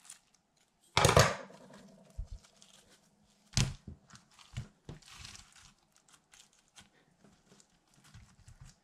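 Blue styrofoam-ball slime (Over the Moon Styro Sludge) being handled and pressed onto a stone countertop: soft crackling and squishing from the beads, with two louder thumps, about a second in and about three and a half seconds in.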